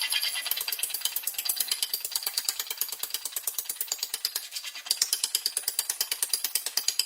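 Rapid, even mechanical knocking, about ten strikes a second, growing louder about five seconds in.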